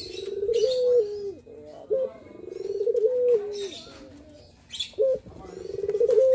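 Male ringneck dove (puter) cooing its song, the manggung, again and again about every two and a half seconds. Each coo opens with a rolling, trembling rise, holds a note, then drops away. Short high chirps come in between the coos.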